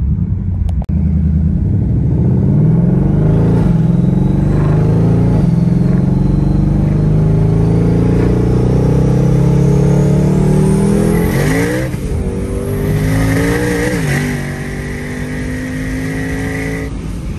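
Twin-turbocharged 2020 Mustang Shelby GT500's 5.2-litre V8 under hard acceleration. The engine note climbs for about ten seconds with a rising turbo whine, then drops sharply as the throttle is lifted. It picks up briefly once more and settles to a steadier, lower note with a high steady whistle.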